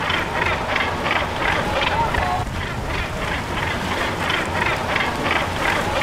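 Chorus of a northern gannet colony: many birds calling at once in short overlapping calls, over the steady low rumble of a boat engine.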